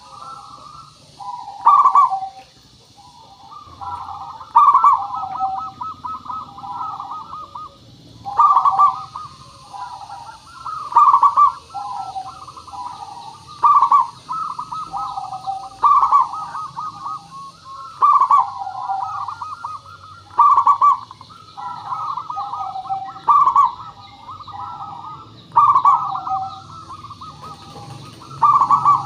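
Zebra dove (perkutut) cooing: a song phrase repeating about every two and a half seconds, each a loud coo followed by a rapid run of softer notes.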